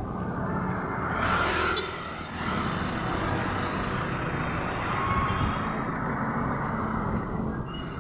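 Street traffic noise: cars moving along a city street in a steady wash of sound, swelling louder briefly about a second in as a vehicle passes.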